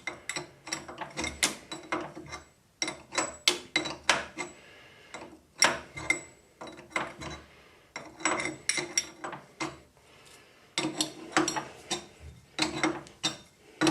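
Hex threading die being turned by hand onto a steel rod, cutting an 8mm thread: bursts of sharp metallic clicks from the die and its wrench, several at a time with short pauses between strokes.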